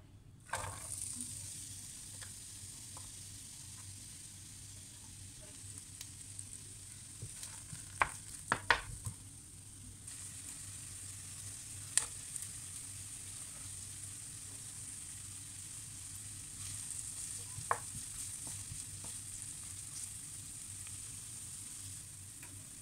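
Chopped onion and ginger frying in hot oil in a frying pan: a steady sizzle that starts suddenly about half a second in. A few sharp clicks sound over it, the loudest cluster about a third of the way through and single ones later.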